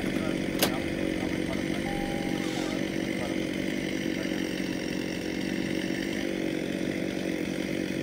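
Two-stroke chainsaw engine running at a steady speed without revving, with one sharp click about half a second in.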